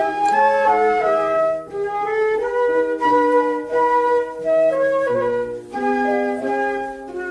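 Instrumental music from a children's song: a flute-like lead plays a quick melody of short notes over a bass line, with no singing.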